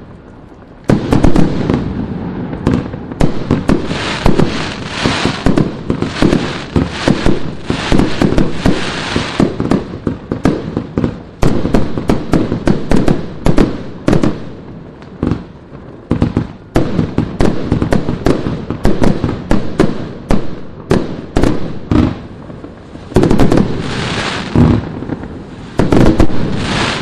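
Vivid Pyrotechnics Blood Shot firework going off in a dense, rapid string of shots and bangs, starting about a second in after a short lull.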